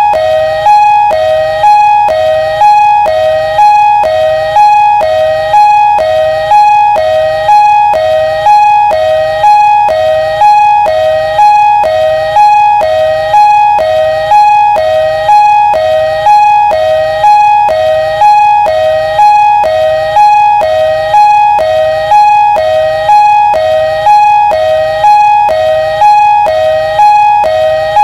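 Ambulance siren sounding a loud two-tone hi-lo pattern: a higher note and a lower note alternating, about one pair a second, steady and unchanging.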